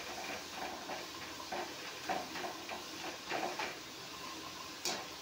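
Potato pieces frying in hot oil in a metal kadai, with a light sizzle and the soft scrape of a slotted spoon stirring them. A single sharp metal clink near the end.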